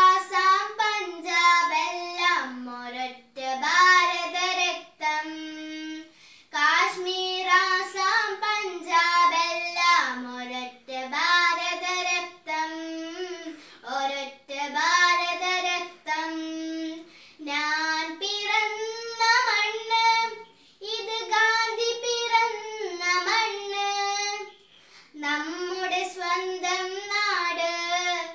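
A young girl singing a patriotic song solo and unaccompanied, in short phrases with brief pauses for breath between them.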